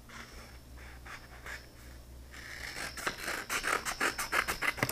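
Scissors cutting folded green paper into a wing shape: light paper handling at first, then from about halfway a quick run of snips, roughly four a second, growing louder.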